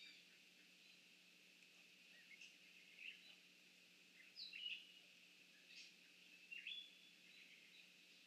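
Faint evening outdoor ambience: several short bird chirps and calls over a steady high hiss, the loudest chirps about halfway through.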